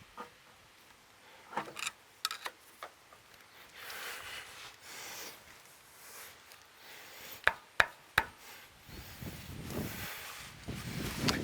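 Scattered metal-on-metal clicks and knocks with soft scraping from hands working a sawmill log stop and a level laid across it, three sharp clicks coming close together past the middle.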